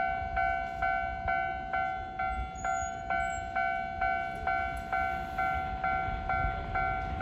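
Japanese railway level-crossing warning bell ringing steadily, about two and a half strikes a second, with a low rumble beneath.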